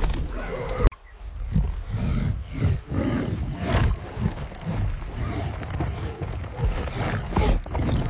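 A stampede: heavy running hooves and footfalls thudding over a low rumble, with animal grunts and roars. The sound breaks off abruptly just under a second in, then picks up again.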